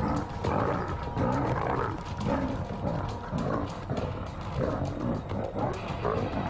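Lionesses growling and snarling in a brief fight: an adult lioness's dominance display over two young females, more show than a real attack.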